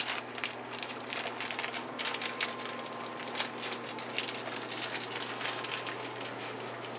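Small plastic spice packet crinkling and crackling in the hands as it is opened, in irregular sharp crackles, over a steady low hum.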